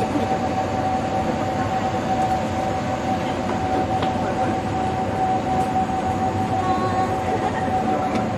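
EF63 electric locomotive moving slowly toward the listener, a steady train running noise with a constant high hum over it.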